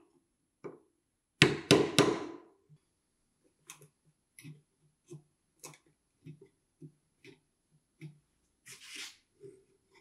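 Three sharp mallet blows on a chisel chopping into the end grain of a hardwood slot. They are followed by a run of light clicks and taps, about two a second, and a short scrape near the end as the chisel pares the slot's walls by hand.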